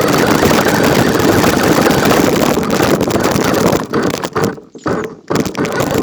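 Toy radio-controlled car running, its small electric motor, gears and wheels making a loud, rough, continuous noise. About four seconds in it breaks into short stop-start bursts.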